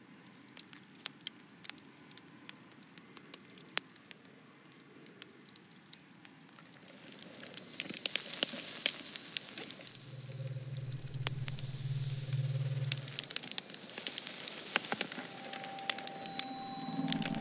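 Fire crackling and sizzling. Sparse pops at first, growing denser and louder about halfway through. A deep steady hum sounds for a few seconds in the middle, and steady tones come in near the end.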